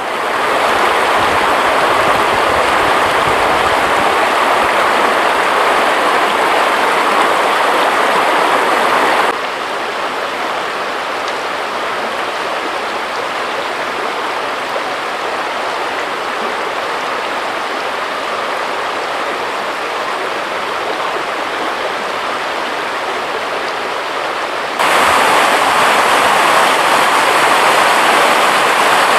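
Steady rushing road and wind noise of a vehicle driving, picked up by a camera mounted on the windshield. It drops to a lower level about a third of the way through and comes back up near the end.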